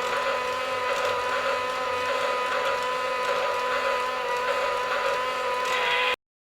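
Battery-powered Thomas Bump n Go Bubble Train toy running, its small electric motor and plastic gears giving a steady whine with light rattling, cutting off suddenly near the end.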